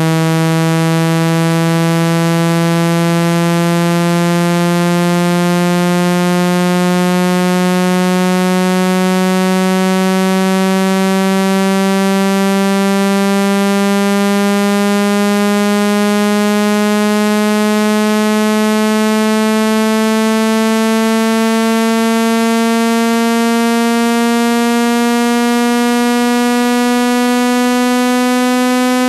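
Synthesized speaker-cleaning tone, meant to shake dust out of a phone speaker's grille. It is a steady, loud electronic tone with many overtones, rising slowly and evenly in pitch.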